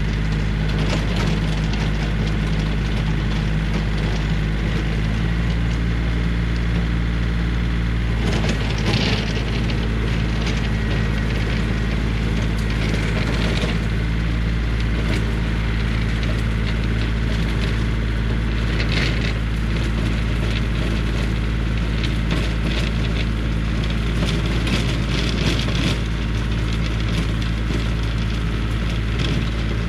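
Yanmar compact tractor's diesel engine running steadily under load, driving a rear PTO mower that chops into woody brush. The woody brush gives crackling, splintering bursts, loudest about nine, thirteen and nineteen seconds in.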